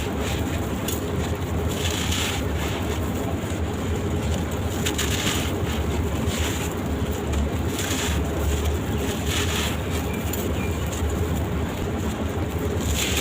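Gritty sand-cement shapes crumbling and crunching in short bursts every second or two, over a steady low rumble.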